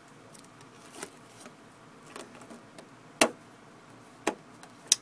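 A handful of short, sharp clicks or taps over a faint steady hiss, the loudest a little after three seconds in and two more near the end.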